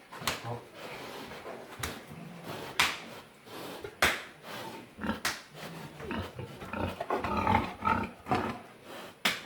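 Pigs grunting and squealing in their pens, with several sharp knocks in between.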